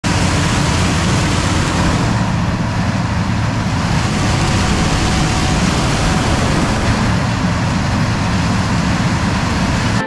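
Gleaner combine harvesting corn, heard close up: a loud, steady mix of engine and machinery noise from the combine's engine, corn head and threshing works.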